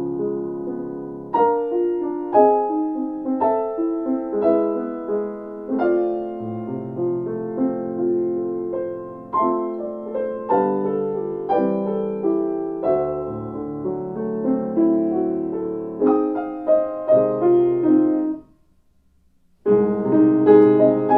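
Grand piano played solo in a classical style, a flowing line of struck notes and chords. The playing stops for about a second near the end, then comes back in with a loud chord.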